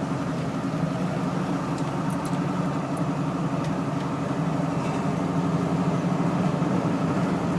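Steady drone of a car driving at road speed, heard from inside the cabin: engine and tyre noise.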